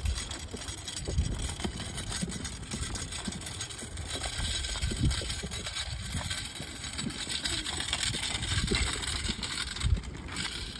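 A two-rider kick scooter rolling over an asphalt path, its small wheels giving a rattling hiss, with scattered low thumps.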